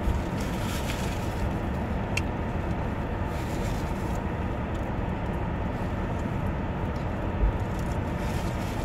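Steady noise of a car heard from inside the cabin, with a faint click about two seconds in and a low thump near the end.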